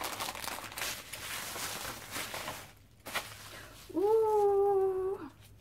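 Paper wrapping crinkling and tearing as a package is unwrapped by hand, with a click near the middle. Then a woman's long drawn-out "ooh" of delight, the loudest sound.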